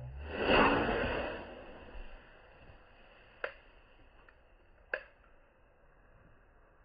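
A firework rocket whooshing up about half a second in and fading over a second or two, followed by two sharp pops about a second and a half apart.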